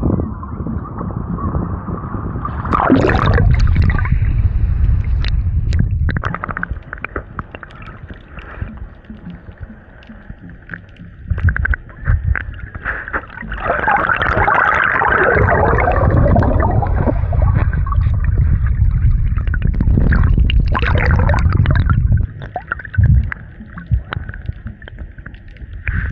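Wind buffeting the microphone: a loud, low rumble that swells and drops away in gusts.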